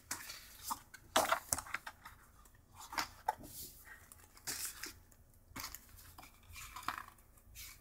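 Sheets of 12 by 12 scrapbooking paper being handled and swapped over, giving a series of irregular short rustles and crackles.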